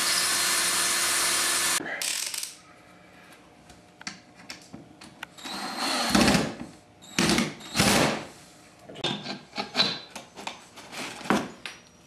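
Cordless drill boring a pilot hole for a screw in a wooden board. It runs steadily for about two seconds at the start, then comes in several shorter, uneven bursts.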